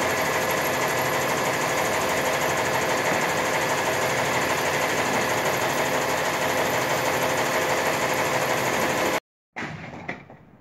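Flatbed delivery truck's engine running steadily close by, with a constant hum and whine. It stops suddenly about nine seconds in, leaving a much quieter stretch with a couple of faint knocks.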